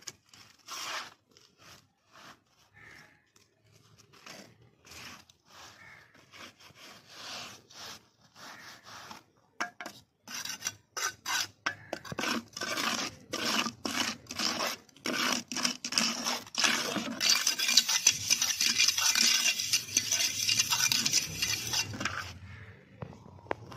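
Steel trowel scraping and rubbing wet cement across a tile mould in quick repeated strokes, faint at first and growing louder and denser from about halfway in, then stopping shortly before the end.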